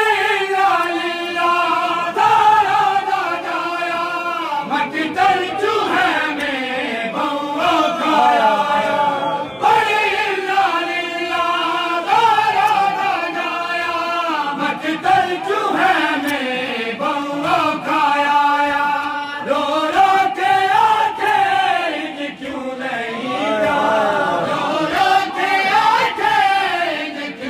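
A group of men chanting a noha, a Shia mourning lament, in chorus: loud sung phrases that rise and fall, one running into the next.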